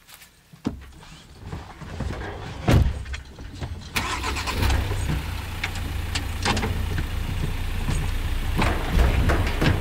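Ford Transit truck's diesel engine starting and running with a steady low rumble, with a loud thud near three seconds in.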